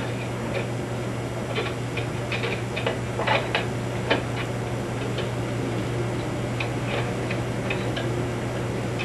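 Scattered light metal clicks and taps of an adjustable wrench working the small nut that clamps a pop-up drain's lift rod to its clevis strap, some in quick clusters, over a steady low hum.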